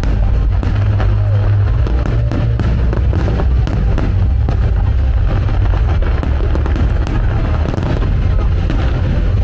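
Fireworks display: rapid crackles and pops from bursting shells over a continuous low rumble, mixed with loud music playing along with the show.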